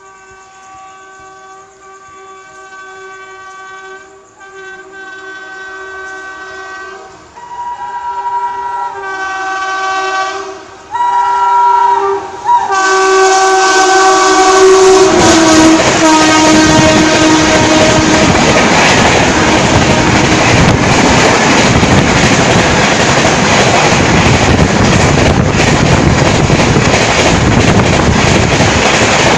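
An Indian Railways WAP-7 electric locomotive sounds its horn in long repeated blasts as it approaches, growing louder. About 13 seconds in, the express passes close at high speed (about 133 km/h) and the horn drops in pitch as it goes by. The coaches then rush past, with a loud steady rush of wheels and wind and a fine clatter of wheels over rail joints.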